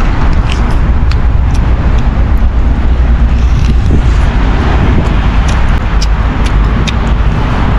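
Strong gusting wind buffeting the microphone, a heavy steady rumble with a rushing hiss over it, and scattered sharp ticks throughout.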